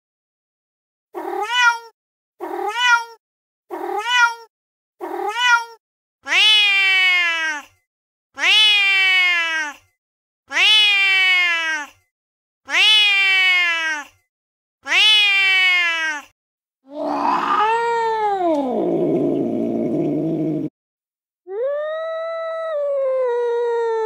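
Domestic cat meowing: four short meows about a second apart, then five longer, drawn-out meows. Near the end comes a long, rough yowl sliding down in pitch that cuts off suddenly, then another long, steady meow.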